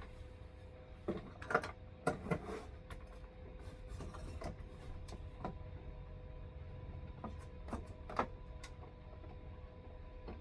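Scattered clicks and light knocks of hand tools, screws and plastic while the shroud of an RV rooftop air conditioner is being unscrewed and taken off, loudest near the start, over a faint steady hum.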